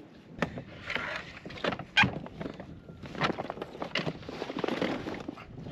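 Handling noises on a plastic kayak as a caught sheepshead is lifted and moved: scattered knocks and bumps, the loudest about two seconds in, with rustling in between.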